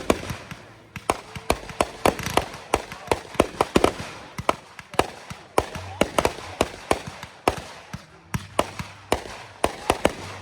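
Fireworks going off: many sharp bangs at uneven intervals, several a second, some louder than others.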